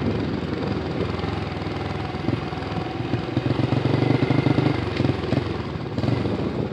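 A motor vehicle engine running steadily, growing louder for a couple of seconds around the middle, then easing off.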